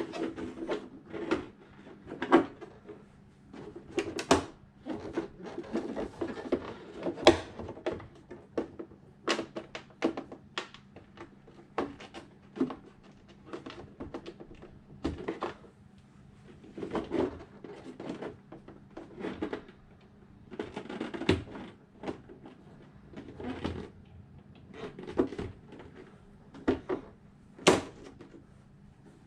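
Plastic RC car body being handled and pressed down onto the chassis and side skirts: irregular plastic clicks, taps and knocks.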